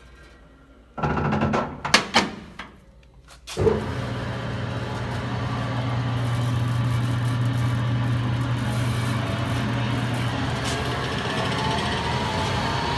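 Dake Johnson VH-24 band saw: a burst of clattering with a few sharp knocks, then, about three and a half seconds in, the motor starts with a thump and runs steadily with a low hum.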